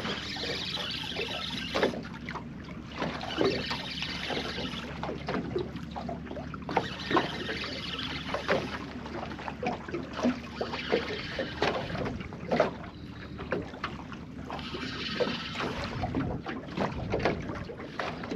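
Water splashing around a small boat and wind buffeting the microphone in gusts, with many scattered small knocks and clicks of fishing gear handled on board.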